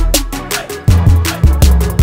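Background music with a steady drum beat and bass.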